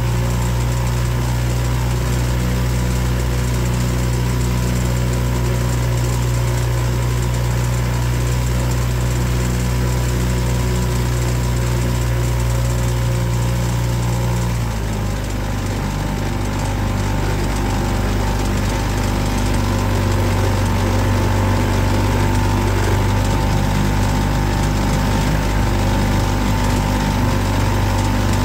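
Boat engine running steadily under way; about halfway through its note drops a step lower as it slows, then holds steady.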